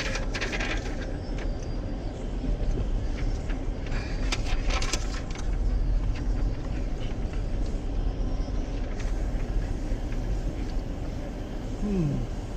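Car driving along a dirt track, heard from inside the cabin: a steady low engine and tyre rumble with a few brief clicks and knocks.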